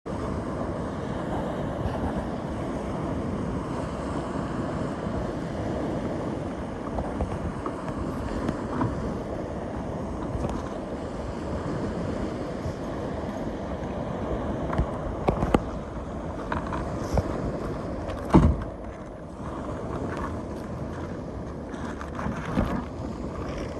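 Steady wind and sea-wave noise, with scattered knocks and clatters in the second half as fishing rods and gear are handled on a plastic kayak; the loudest is a single thump about 18 seconds in.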